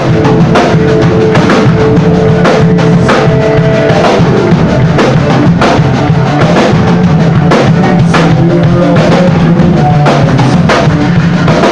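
Live rock band playing loud: electric guitars over a drum kit, a steady beat with kick and snare hits about twice a second.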